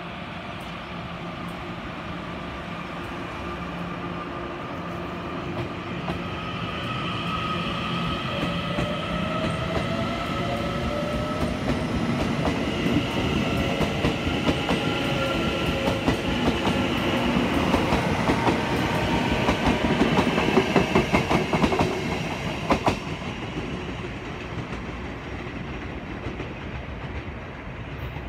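Puyuma Express TEMU2000 electric multiple unit pulling out of the station: its traction motors whine, rising in pitch as it gathers speed. The wheels then clack rapidly over the rail joints, loudest about twenty seconds in as the cars pass, and the sound falls away near the end.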